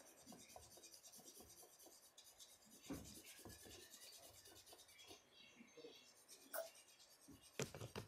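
Faint scratching of a coloured pencil shading lightly on paper in many short strokes, with a few louder strokes about three seconds in and near the end.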